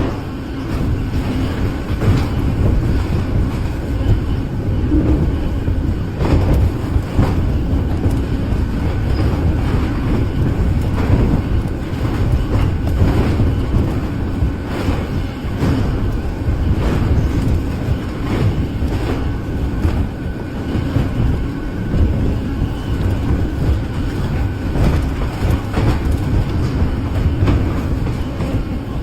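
Heavy mechanical rumble, steady and loud, with irregular knocks and clanks running through it.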